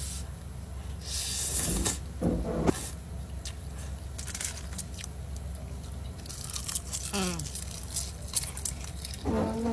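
Instant ramen noodles slurped from a cup with chopsticks, in several short hissing slurps with chewing between them. Brief vocal murmurs come from the eater at times.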